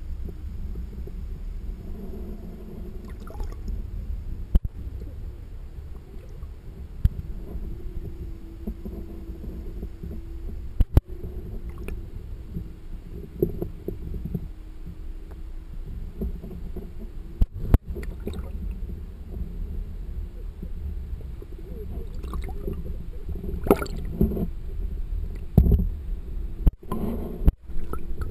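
Muffled underwater rumble picked up by a submerged camera, with a faint steady hum and a few sharp knocks, several of them close together near the end.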